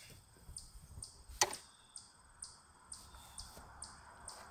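Faint, regular high-pitched clicking about twice a second, with one sharp knock about a second and a half in.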